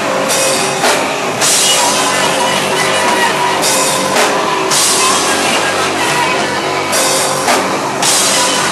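A live rock band playing loud: full drum kit with crashing cymbals under a dense, distorted wall of instruments.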